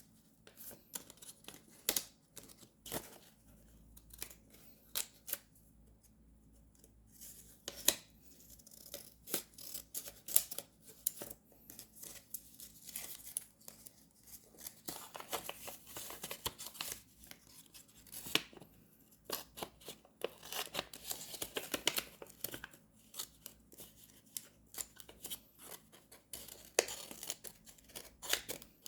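Scissors snipping paper in a run of sharp, irregular snips, with longer stretches of paper rustling or tearing in between.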